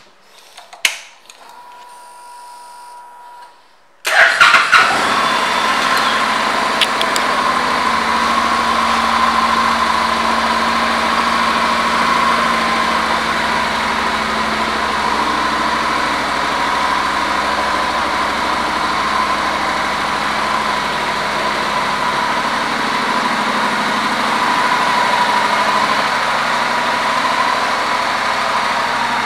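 Honda NC700X's 670 cc parallel-twin engine: a click about a second in, then about four seconds in the engine starts and settles into a steady idle.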